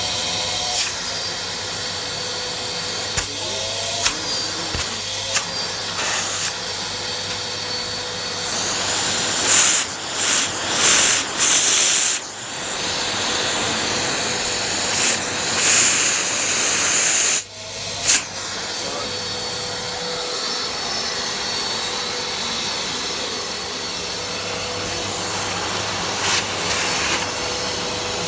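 Metabo vacuum cleaner running, a steady rush of air over a low motor hum, with a few clicks early on. Several times between about 9 and 17 seconds in, the airflow surges into louder bursts of hiss, and near 17 seconds it briefly drops away.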